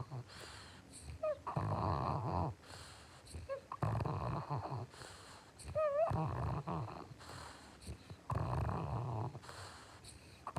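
French bulldog snoring in a steady rhythm, one snore about every two to two and a half seconds, with a high wavering whistle ahead of some of the snores.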